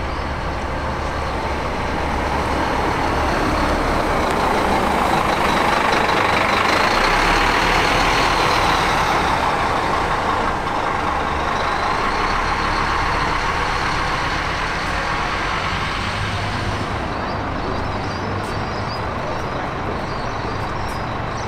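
Large bus engine running as it pulls past, the noise swelling to its loudest about seven or eight seconds in and then easing off, with a thin high whine over it.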